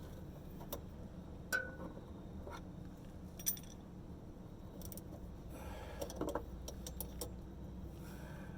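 A few scattered metallic clicks and clinks of gear wrenches being handled and tried for size.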